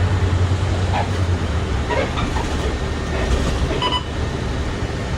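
Inside a moving city bus: steady engine hum and road noise, with a few faint creaks from the bodywork. A short electronic beep sounds about four seconds in.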